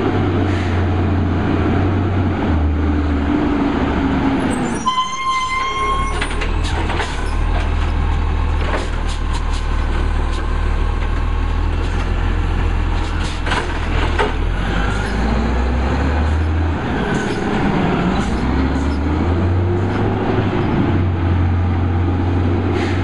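Condor Curbtender automated side-loader garbage truck at work. Its diesel engine runs with its pitch rising and falling as it revs. A short high squeal comes about five seconds in, then a run of clanks and bangs as a cart is emptied into the hopper. The engine revs again near the end.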